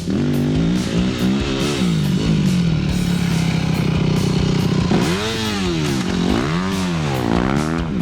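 Yamaha YZ 250 dirt bike engine revving, level at first and then rising and falling in pitch several times as the throttle is opened and closed.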